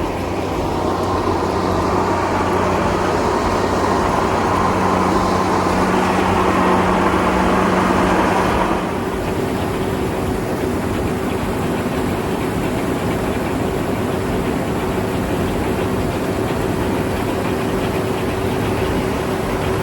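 Combine harvester engine running steadily with a dense mechanical drone, dropping somewhat in level about nine seconds in.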